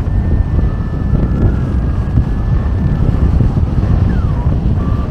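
Wind noise from airflow rushing past a Wills Wing UltraSport 166 hang glider in flight, buffeting the microphone with a steady low rumble. Faint thin high tones sound underneath, with a couple of short pitch glides downward about four seconds in.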